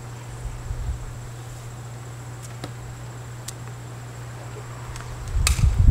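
Open-air PA background: a steady low hum with a faint steady high tone and a few light clicks, then a loud low rumbling thump about five and a half seconds in.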